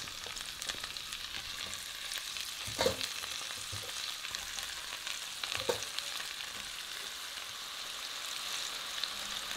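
Freshly washed, still-damp morel mushrooms sizzling in hot olive oil and butter in a cocotte pot. There is a steady frying hiss, with two brief clatters about three and six seconds in.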